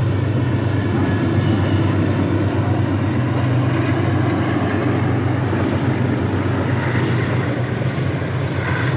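Jaffar Express passenger train running past on a hillside track: a steady drone from its diesel locomotive with the rumble of the coaches on the rails.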